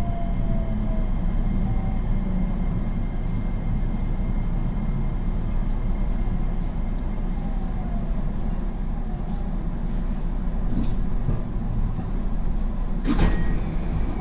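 Interior sound of a JR West 225-5100 series electric train coming to a stop: the falling inverter-motor whine fades out in the first second, leaving the steady low hum of the standing train. About a second before the end, the doors open with a clatter.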